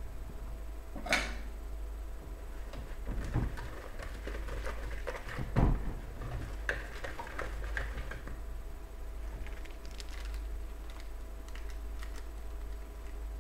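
Scattered knocks and clatter of an orange plastic mixing bowl, with a wire whisk standing in it, being handled and shifted on the worktop. The loudest thump comes about five and a half seconds in, over a low steady hum.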